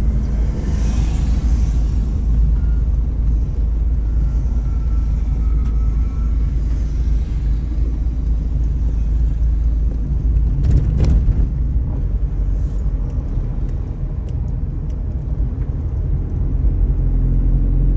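Steady low rumble of a moving car, its engine and tyres on the road, with a brief louder rush about eleven seconds in.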